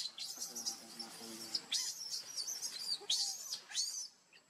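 Newborn macaque crying in a rapid string of high-pitched, wavering squeaks and chirps, with louder bursts about halfway through and again near the end before it falls quiet.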